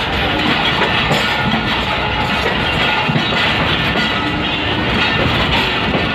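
Karachi Circular Railway passenger train running on the track, heard from a coach doorway: steady noise of the wheels and coaches moving along the rails.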